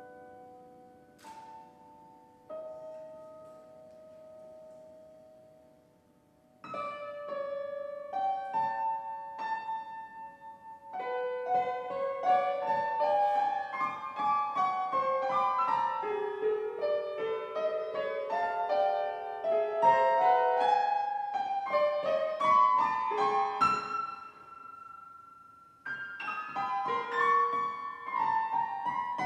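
Grand piano with a pre-recorded tape part played through a loudspeaker, in contemporary piano-and-tape music: a few sparse ringing notes, then from about seven seconds in fast, dense flurries of notes. Near the end the flurries thin to a single held note for a couple of seconds before resuming.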